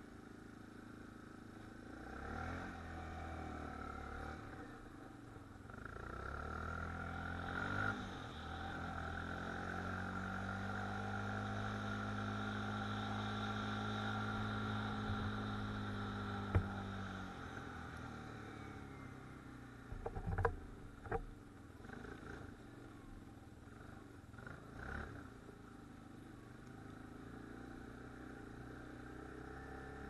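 Quad (ATV) engine running while ridden, its pitch climbing as it speeds up, holding steady for several seconds, then dropping as it slows. A few sharp knocks and rattles come in the later part.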